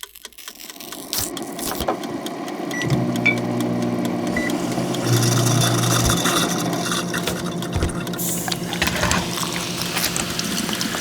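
Kitchen sounds: a run of small clicks and clatter, joined about three seconds in by a steady electric hum from an appliance.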